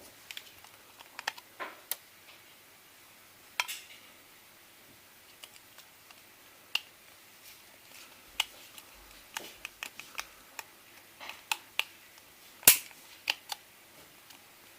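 Irregular sharp clicks and snaps of a first-generation iPod Nano's back cover being pressed and clipped into place by hand, working along from the hold-switch end, with one loud snap near the end.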